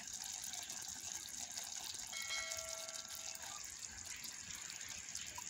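Fish simmering in liquid in a clay pot: a steady watery hiss with fine bubbling crackle. About two seconds in, a clear ringing tone sounds for about a second and a half.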